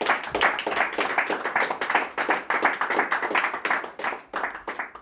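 Audience applauding, a dense run of clapping that thins out near the end.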